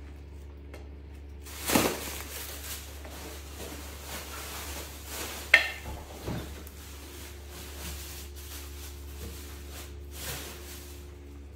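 Steady low hum with a few short knocks and clatters of a dish on a hard counter. The sharpest is a single clink about five and a half seconds in.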